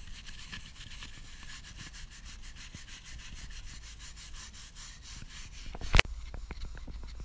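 Stiff hand brush scrubbing moss and lichen off a boulder's rock face in quick back-and-forth strokes, clearing the holds for bouldering. About six seconds in comes a single sharp knock, the loudest sound.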